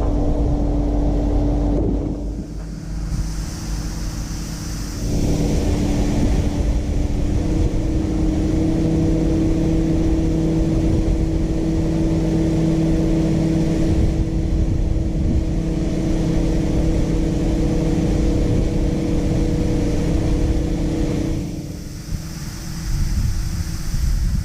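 Farm vehicle engine running steadily with a constant hum, dropping in level briefly about two seconds in and again near the end.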